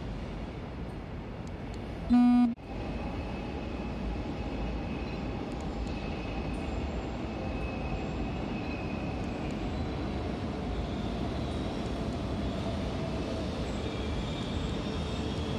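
A Shinkansen bullet train gives one short horn toot, then runs on with steady rumbling noise and a faint whine from its motors as it pulls out of the station.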